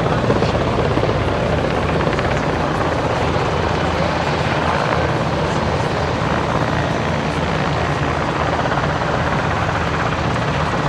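Mil Mi-17 'Hip' helicopter flying past: the steady beat of its five-blade main rotor over the running of its twin turbine engines, at an even level throughout.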